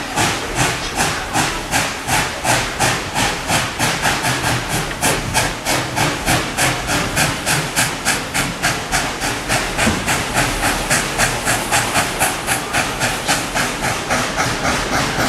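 Narrow-gauge steam locomotive working under way, chuffing about three exhaust beats a second, with hissing steam.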